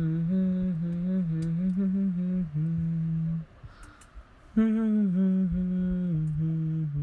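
A man's voice humming a slow tune in two long phrases, with a pause of about a second in the middle.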